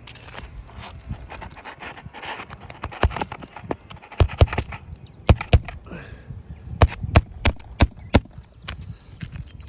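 Irregular sharp knocks and snaps with scraping and rustling between them, from hands and tools working asphalt roof shingles in a repairability test. The knocks come thickest and loudest from about three seconds in, then stop just before the end.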